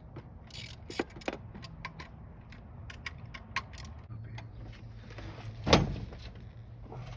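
Hand tools working on the cam bearing cap bolts of a BMW M52 cylinder head: irregular ratchet clicks and small metal clinks, with one louder knock of metal on metal late on.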